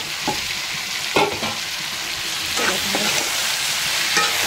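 Food frying in hot oil in a pan, a steady sizzle, while it is stirred: a few scraping strokes against the pan, the loudest about a second in.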